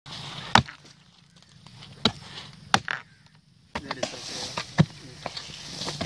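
Heavy chopping strikes of a long-handled hand tool biting into wood at a tree's base: about five loud, sharp blows at uneven intervals, with men's voices between them.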